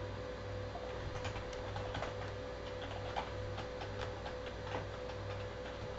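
Computer keyboard keys clicking irregularly as a password is typed, over a steady electrical hum.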